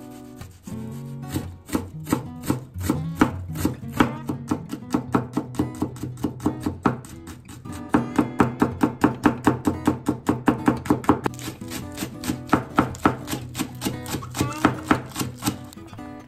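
Chef's knife chopping on a wooden cutting board, slicing onion and then mincing garlic in quick, regular strokes that come fastest in the second half. Light acoustic guitar music plays underneath.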